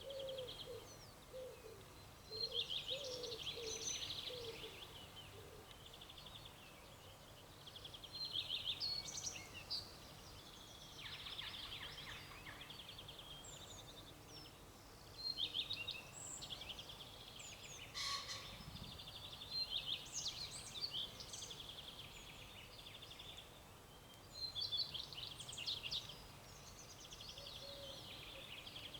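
Wild songbirds singing in spring, short quick warbling phrases repeating every few seconds, over a faint steady outdoor hiss.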